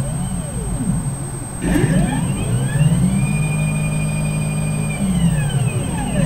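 Stepper motors of a belt-driven CNC gantry whining as the thread-laying head moves. A short move near the start rises and falls in pitch. From just under two seconds in, with a click, a longer move climbs in pitch, holds steady for about two seconds, then falls away as the head slows.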